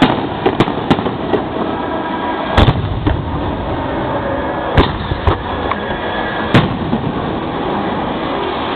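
Aerial fireworks going off at close range: a series of sharp booms every second or two, the heaviest about two and a half seconds in, over a continuous noisy background.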